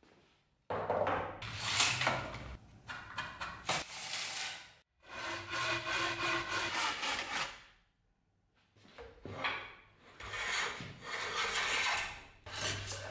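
A hand tool worked in repeated strokes against a dry beech pole handle clamped in a vise, shaping the wood. The strokes come in bouts of a second or two with short pauses between, and a longer pause a little past the middle.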